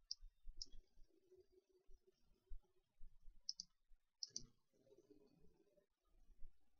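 Computer mouse button clicks: two single clicks, then two quick double clicks about a second apart.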